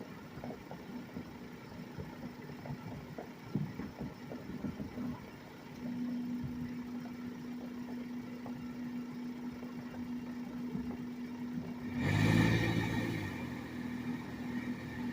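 Scattered distant pops of New Year's celebratory gunfire, mostly in the first six seconds, over a steady low hum. About twelve seconds in, a louder motor-vehicle engine swells up and dies back.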